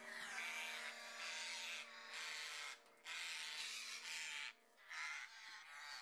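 African grey parrot giving harsh, rasping screeches while held in a keeper's gloved hand, in several bouts of about a second with short breaks. A faint held musical chord fades out under it.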